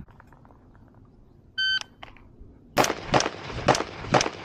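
Shot timer beeps once, a short start signal. About a second later a rifle fires a string of four rapid shots, roughly half a second apart.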